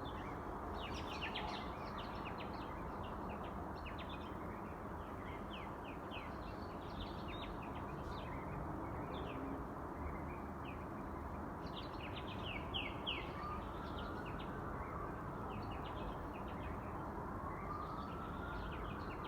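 Many small birds chirping in quick short notes at dawn over a steady low city hum, with a faint tone that rises and falls in the last few seconds.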